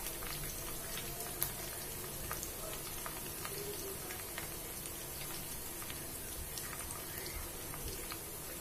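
Faint scattered ticks and light taps over a steady low hiss, with one sharper click about a second and a half in, as a knife cuts through steamed semolina dhokla and knocks against the steel tin beneath.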